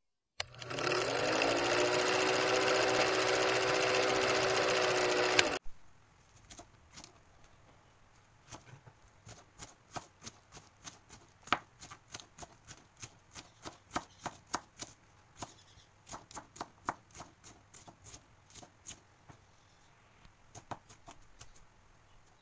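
A film-countdown intro sound effect: a steady mechanical projector-like whirr with a hum that rises in pitch at its start, running about five seconds and then cutting off sharply. After it, a kitchen knife chops cabbage on a plastic cutting board in a run of quick, light knocks, about two a second.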